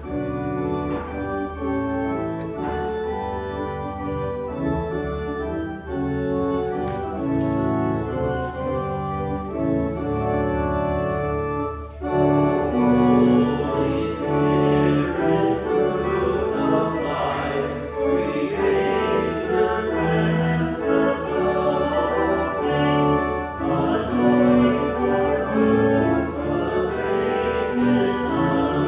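Organ playing a hymn in sustained chords. After a short break about twelve seconds in, it comes back louder, with the congregation singing along.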